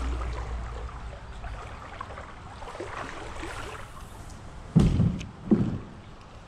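Faint running river water and soft handling of a spinning rod and reel while a Ned-rig lure is retrieved, with two loud, low thumps about half a second apart near the end.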